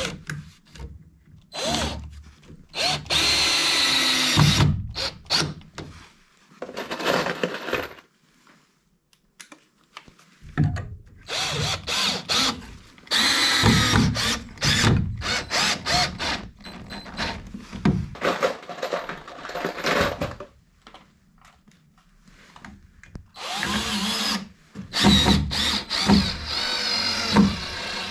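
Cordless drill driving screws through metal brackets into wooden wall framing, its motor whining in repeated bursts that start and stop, with two longer pauses between runs.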